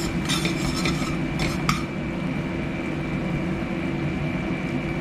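A spatula scrapes and clicks against a stainless-steel frying pan, stirring for about the first two seconds. Then a thick teriyaki sauce of soy sauce, vinegar, sugar and butter bubbles steadily in the hot pan over a constant hum.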